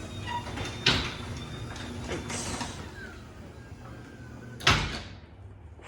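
LiftMaster 8550WLED belt-drive garage door opener running a sectional door, with a steady mechanical hum. A sharp knock comes about a second in and a loud bang near the end, after which the noise falls away. The door is struggling, which the owner puts down to the cold and ice.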